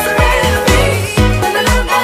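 Background pop music with a steady beat of about two low thumps a second.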